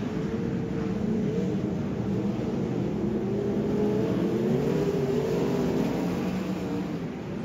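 Several sprint car V8 engines racing on a dirt oval, the pitches of more than one car overlapping and rising and falling as they go through the turns.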